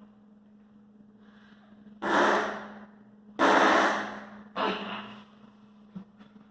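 A man making loud fake fart noises by blowing: three bursts, about two, three and a half and four and a half seconds in, the middle one longest and loudest. A steady low hum runs underneath.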